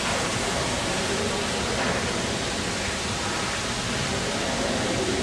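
Steady rush of water from a small cascading fountain spilling down stone tiers into a pool.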